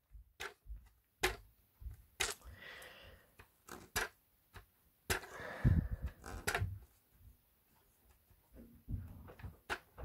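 Fingernails picking and scraping at a paper sticker stuck on a Hoover Purepower's glossy plastic handle: scattered small clicks and knocks, with a few short scratchy, tearing rustles.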